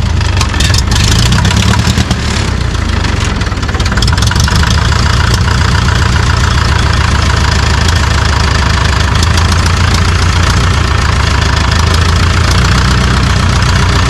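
1952 International Harvester TD-9 crawler's gas-start diesel engine running steadily at idle. Its sound wavers and dips briefly about two seconds in, then settles into an even, rapid beat.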